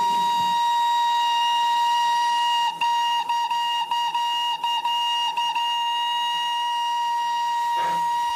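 Darjeeling Himalayan Railway steam locomotive's whistle blowing one long, steady, shrill note. About three seconds in it is cut off and reopened in a quick series of short toots, each dipping slightly in pitch, then it is held steady again: the driver whistling for departure.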